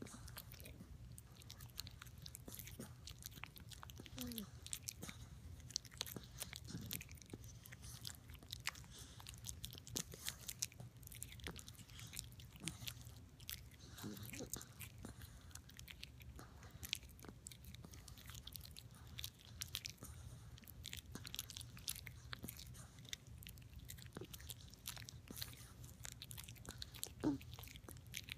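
A Bichon Frise gnawing a chew stick, with a quick, irregular run of small crunches and teeth clicks throughout.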